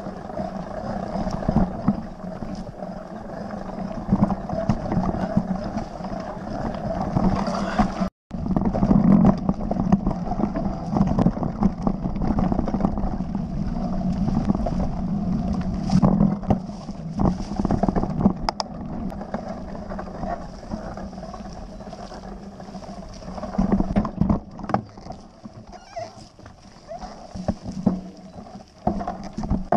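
Mountain bike riding down a rough dirt trail, heard from a camera on the bike or rider: continuous tyre and trail noise with wind on the microphone, and frequent knocks and rattles from the bike going over stones and roots. The sound breaks off for an instant about eight seconds in.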